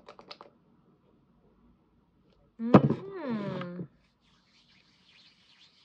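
A sharp click followed by a creak of about a second that bends down in pitch, then faint soft rubbing of hands near the end.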